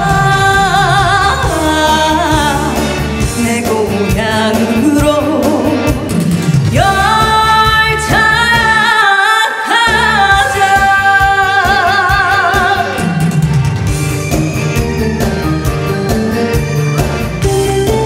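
Woman singing a Korean trot song into a microphone over backing music, holding long notes with a strong vibrato in the middle. Near the end the voice stops and an instrumental break with guitar and keyboard takes over.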